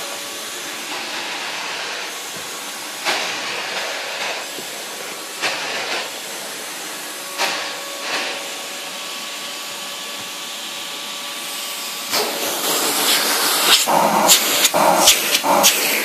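Numatic Henry HVR200 vacuum cleaner running, with its floor tool pushed over carpet: a steady rushing hiss with a faint whine, and louder swishes every couple of seconds. The noise grows louder and rougher over the last few seconds.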